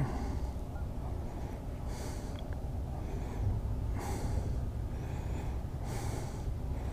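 A man breathing close to the microphone: three noisy breaths about two seconds apart, over a steady low rumble.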